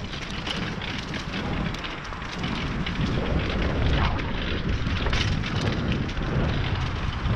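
Mountain bike descending a dirt trail: wind buffeting the camera microphone as a low rumble, with tyres rolling over dirt and many short clicks and knocks of the bike rattling over rough ground.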